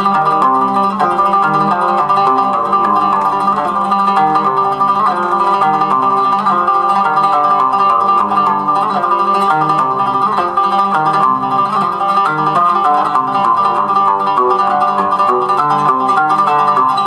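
Oud playing an improvised taqsim: quick plucked notes wander up and down over a steady low drone.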